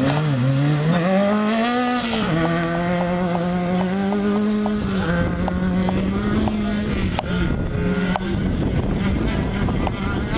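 Rally car engine running hard at high revs, its pitch climbing and then dropping sharply at gear changes. A short run of sharp ticks comes a few seconds in.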